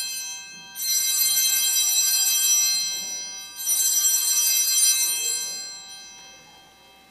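Altar bells rung at the elevation of the chalice after the consecration. A bright, high ringing dies away, two more rings follow about a second and about three and a half seconds in, and the last fades out slowly.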